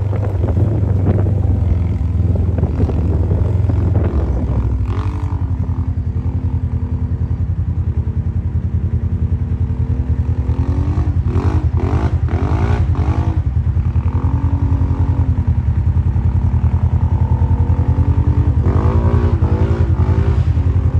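Side-by-side UTV engine running at low speed, with a heavier rumble for the first few seconds. Quick rises and falls in revs come in a cluster about eleven to thirteen seconds in, and again near the end.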